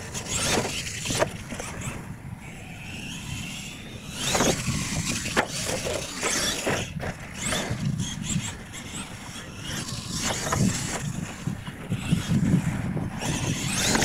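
R/C monster trucks running on a dirt track: motors whining up and down, tyres scrabbling over the dirt, and several sharp knocks from ramp hits and landings.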